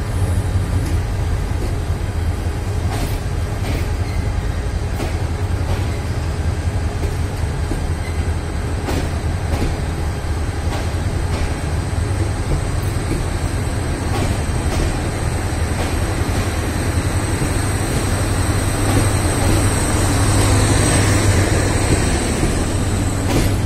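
Mohanagar Express passenger coaches rolling slowly past along a station platform as the train departs, with a steady low rumble and irregular sharp clicks of wheels over rail joints. A thin high whine comes in and grows louder in the last few seconds.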